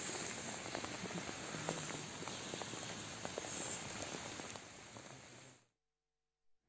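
Steady outdoor background hiss in woodland, picked up by a phone's microphone, with a bright high-pitched band and scattered faint clicks. It cuts off abruptly about five and a half seconds in.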